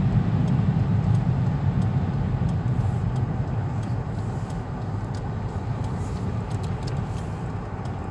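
Car interior noise while driving on a snowy road: a steady low rumble of tyres and engine that slowly grows quieter.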